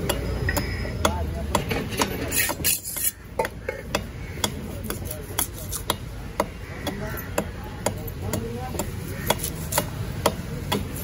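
A heavy fish-cutting knife chopping through a large fish into a wooden chopping block: a series of sharp knocks, about one or two a second, as the fish is cut into steaks.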